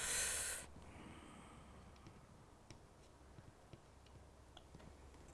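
A short, loud breath out at the start, then faint scattered ticks as a small hand drill bit is twisted into a plastic coupling.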